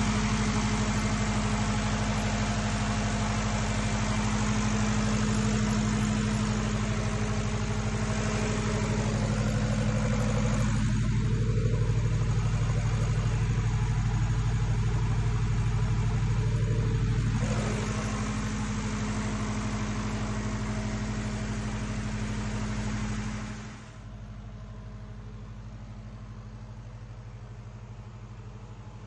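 Perkins diesel engine of an FG Wilson 60 kVA generator set running steadily. The tone shifts for several seconds mid-way, and the sound drops suddenly to a quieter but still steady run near the end.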